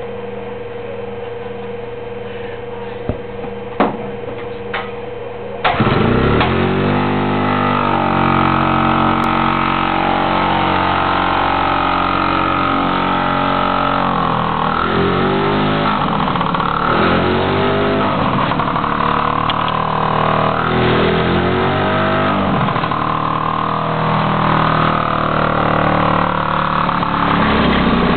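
Freshly rebuilt two-stroke single-cylinder engine of a 1961 Harley-Davidson Topper scooter starting about six seconds in, after a steady hum and a few clicks. It then runs with repeated throttle blips, the pitch rising and falling several times.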